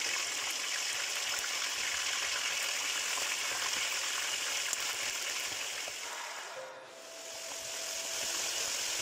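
Chicken pieces frying in hot olive oil in a deep pan: a steady, bubbling sizzle that dips briefly about seven seconds in and then comes back.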